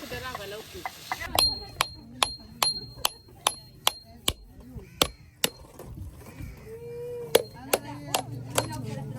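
Sizzling from frying food cuts off about a second in. A run of sharp knocks follows, about two or three a second, with a slight metallic ring; they thin out after about five seconds.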